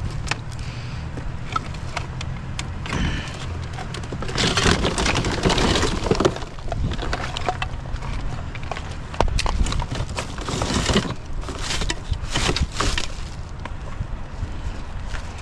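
Rummaging through a plastic tote of tangled extension cords and aquarium gear: cords dragging, plastic rustling and clattering, with scattered sharp clicks. The handling comes in noisy bursts, about four seconds in, again around nine to eleven seconds, and once more near twelve seconds.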